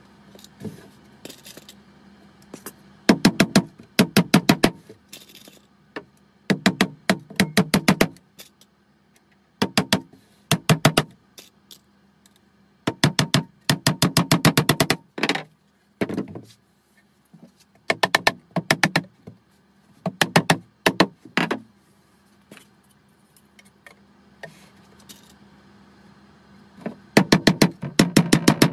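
Claw hammer tapping nails in to fix a metal frame runner into the wooden super box. The taps come quickly, several a second, in bursts of a second or two separated by short pauses.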